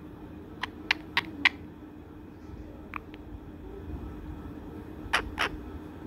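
Indian ringneck parakeet making about seven short, sharp squeaks scattered through, over a steady low hum.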